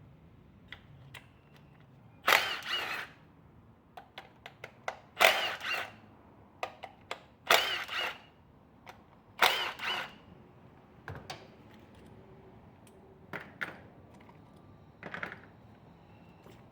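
Cordless power tool run in four short bursts, each with a whine that rises and falls, spinning the bolts out of the ignition coils, with light clicks and clinks of tools and parts in between.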